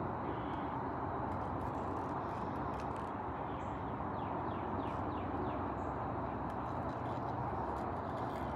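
Steady outdoor background noise, like a distant hum of traffic, with a few faint bird chirps about four to five seconds in.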